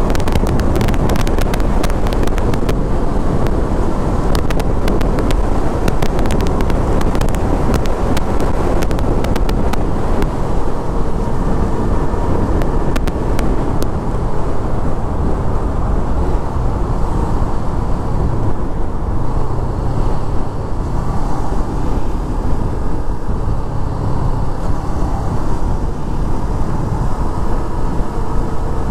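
Wind rushing and crackling across the microphone over the running engine and road noise of a sport motorcycle at highway speed. The crackling of the wind eases after about ten seconds.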